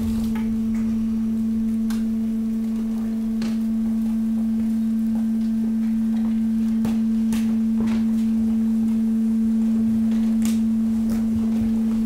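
190-bar hydraulic waste press running with a steady hum from its hydraulic pump as it works the load, with a few sharp cracks from the waste in the chamber.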